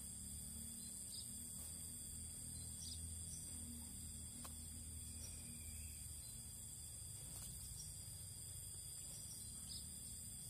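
Faint, steady high-pitched insect chorus, with a low rumble underneath and a few short, faint chirps scattered through.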